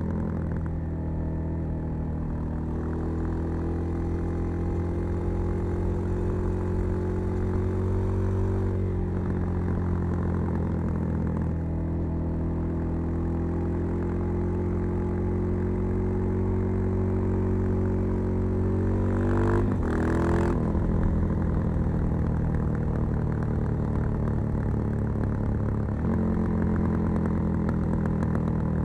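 Suzuki DR-Z 400 supermoto's single-cylinder engine, breathing through a Keihin FCR 39 carburettor and a LeoVince V3 silencer with its dB-killer fitted, running under way. Its note rises slowly and drops back three times, with a brief clattering break about two-thirds through.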